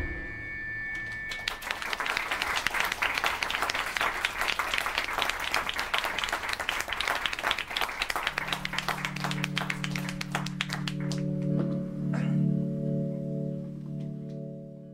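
Club audience applauding as the band's song stops, the clapping thinning out after about ten seconds. About eight seconds in, a sustained low keyboard chord starts under the applause and holds steady, swelling briefly about twelve seconds in.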